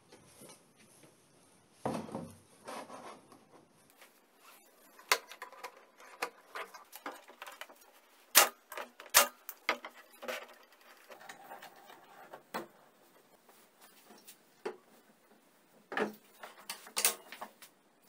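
Workshop handling sounds: scattered clicks, taps and knocks of plastic and metal parts being picked up, set down and fitted by hand, with a brief rustle about two seconds in and the sharpest knocks about eight and nine seconds in.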